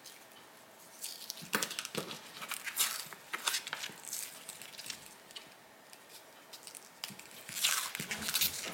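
Crinkling plastic IV fluid bag and medical tape being pulled off its roll and wrapped around the joint between the bag's port and a three-way stopcock to seal it, in short crackling bursts, with the longest and loudest stretch near the end.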